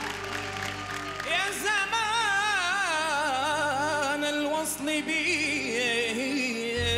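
A man singing a traditional Andalusian mawwal over held instrumental chords. His voice comes in about a second in, with long, wavering, heavily ornamented notes that drift downward.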